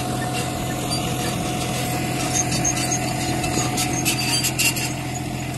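John Deere 5105 tractor's three-cylinder diesel engine running steadily under load, pulling a potato planter through the soil, with a few sharp clicks about four seconds in.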